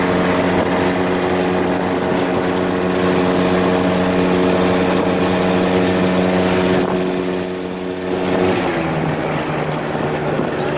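Small engine of a GoCar open three-wheeler running at a steady pace, with road and wind noise. About eight and a half seconds in its note drops lower as it slows.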